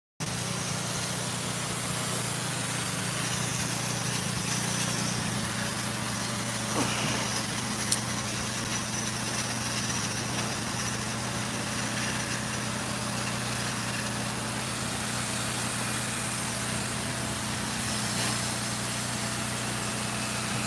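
An engine running steadily under a constant hiss from a blasting nozzle working on the bridge's stonework, with one sharp click about eight seconds in.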